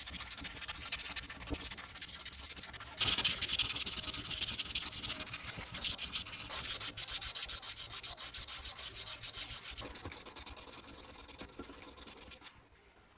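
Sandpaper rubbed by hand over a bare cast-metal sewing machine body in quick back-and-forth strokes, taking off the old paint. The strokes get louder about three seconds in and stop near the end.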